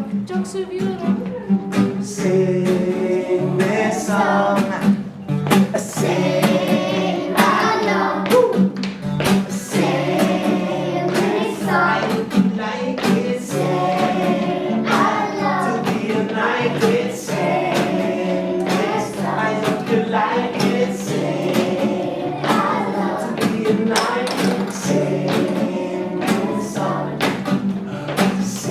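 Music: a group of voices singing together over a steady low accompaniment, with frequent sharp percussive strokes.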